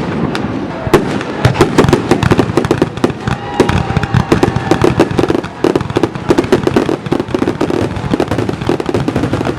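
Fireworks display: a dense, rapid run of bangs and crackles that goes on without a break, with a faint falling whistle about halfway through.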